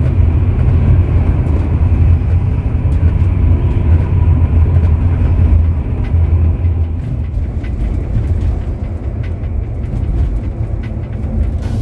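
Steady low drone of a Scania K410 double-decker coach cruising at highway speed, engine and road noise heard inside the passenger cabin. It eases slightly about halfway through, with faint light ticks and rattles over it.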